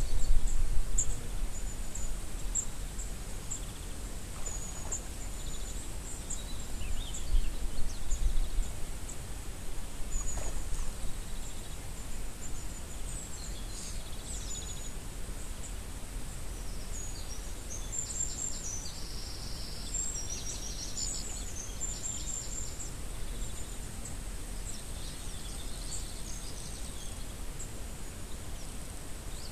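Small birds chirping and singing in short high phrases throughout, over a low rumble of wind on the microphone that rises in gusts near the start and again around a third of the way in.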